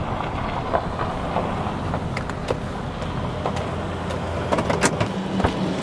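Pickup truck engine running, heard from inside the cab as a steady low rumble, with a few sharp clicks scattered through it.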